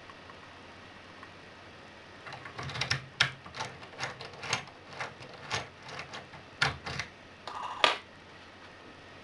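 Irregular sharp metallic clicks and clacks from a brass euro profile cylinder as a key is worked in it, about fifteen over some five seconds, with the loudest near the start and the end of the run.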